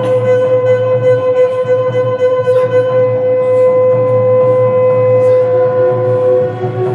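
Music with a wind instrument holding one long note over a steady low drone. The note drops to a lower pitch near the end, and a few percussive strikes fall at scattered points.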